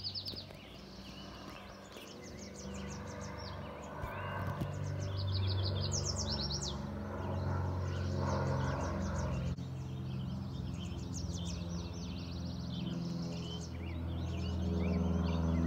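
Distant twin-engine Piper PA-23 Aztec propeller plane droning overhead, a steady low hum that grows louder from about four seconds in, dips suddenly midway and builds again near the end. Birds sing repeated high chirps and trills over it throughout, a dawn chorus.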